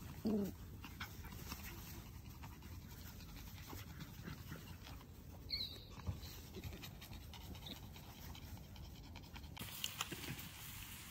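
Puppies playing on grass: faint panting and rustling, with a short whine just after the start and a brief high squeak about halfway.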